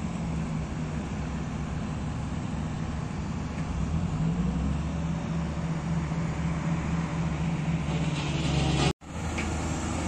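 Diesel engines of heavy road-construction machinery running, a steady low drone that grows louder about four seconds in. Near the end the sound cuts out for an instant, and an engine drone picks up again right after.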